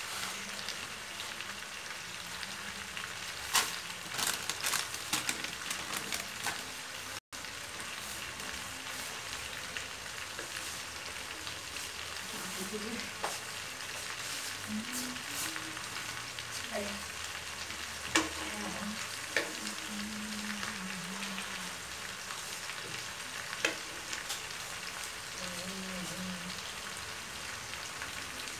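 Lapsi (hog plum) peels sizzling steadily as they fry in a wok, with a wooden spatula knocking and scraping against the pan now and then as they are stirred.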